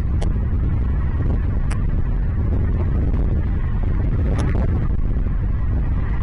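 Steady low rumble of wind buffeting the microphone, with three brief sharp high ticks scattered through it.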